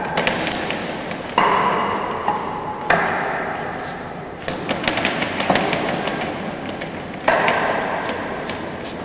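Forearms and hands striking the wooden arms and trunk of a Wing Chun wooden dummy (mook yan jong) in a series of sharp wooden knocks. Four heavier strikes ring on longer than the rest.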